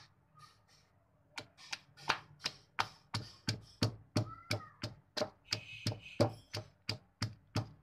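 Wooden pestle pounding green chilies in a stone mortar: steady, sharp thuds at about three strokes a second, starting about a second and a half in.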